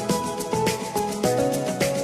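Background music: an upbeat instrumental track with a steady beat and melodic notes.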